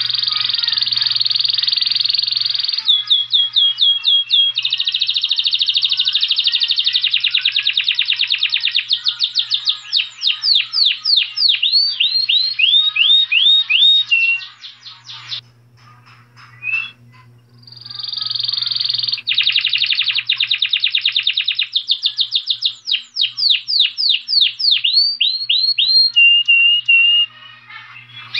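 Saffron finch singing: long, fast trills alternating with runs of quick, sharply falling notes, with a short break about halfway through.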